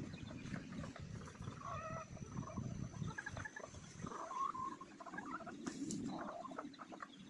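Chickens making short, scattered clucking calls over a low rumbling background noise.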